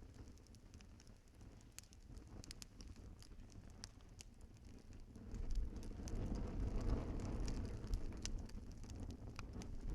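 Wood fire in a fireplace crackling, with scattered sharp pops. About halfway through, a low rushing of the flames swells up and then slowly eases.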